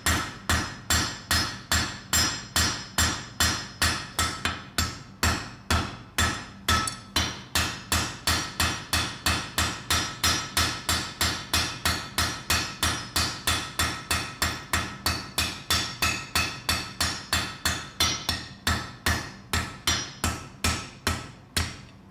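Blacksmith's hammer striking a small piece of iron on an anvil in steady blows, about three a second, each with a short metallic ring. The hammering forges the basic shape of a pendant, and the blows stop near the end.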